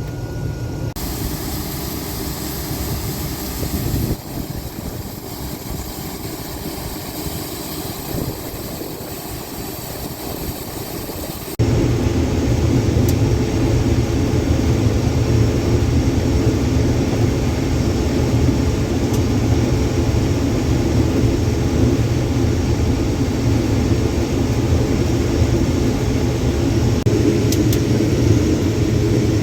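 Combine harvester's engine and machinery running steadily. About twelve seconds in the sound changes abruptly and becomes louder, with a deeper steady hum.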